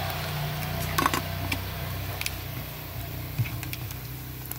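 Guapote fish frying in oil in a small metal pot, with scattered faint crackles and a short clatter about a second in as the spoon turns the fish. A steady low hum runs underneath.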